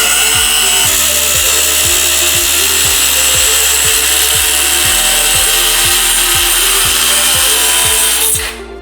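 HK WM00125 multi-purpose power cutter running under load, a steady high-pitched cutting whine that stops suddenly about eight seconds in. Background music with a soft beat plays underneath.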